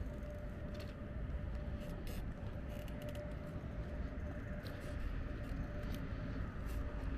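Bicycle being ridden: a steady low rumble of wind and tyres on pavement, with scattered light clicks and rattles and a faint steady whine.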